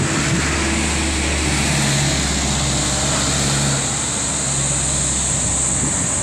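Steady road traffic noise, with a box truck's engine running close ahead.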